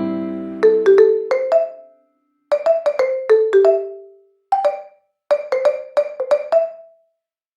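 Music of single struck, ringing notes in short groups of three to five, separated by gaps of silence.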